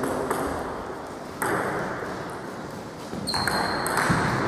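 Table tennis ball being knocked back and forth in a rally: sharp ball clicks off rubber bats and the table, about one a second.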